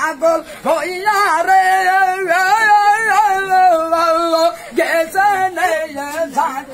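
A man singing in a high voice, holding one long wavering note for about three and a half seconds, with short sung phrases before and after it.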